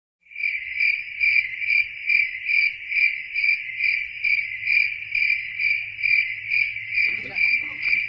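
Cricket chirping in an even rhythm of about two chirps a second, loud and clear, starting suddenly out of silence: a comedic crickets sound effect laid over the footage. Faint voices come in near the end.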